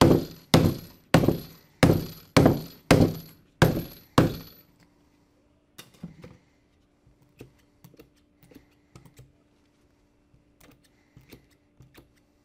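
Small sledge hammer striking eight times, about one blow every 0.6 s, driving Flexco BR rivets down through the guide block into the conveyor belt; each blow carries a brief high ring. After about four seconds the blows stop, leaving small light clicks of rivets and tools being handled.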